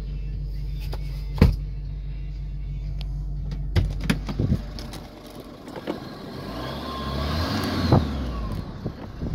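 Dodge Nitro engine idling, heard from inside the cabin, with a steady low hum. Several sharp clicks and knocks from the interior being handled break in, the loudest about a second and a half in, and a louder stretch of rustling with a faint rising-and-falling whine follows near the end.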